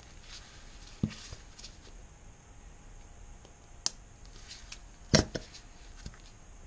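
A few short plastic clicks and creaks from a squeeze bottle being squeezed to dispense resin into a plastic cup; the loudest is a quick double click about five seconds in.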